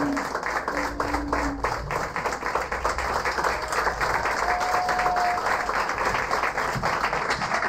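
A small theatre audience applauding steadily at a curtain call, dense hand-clapping throughout, with a couple of short held calls from the crowd.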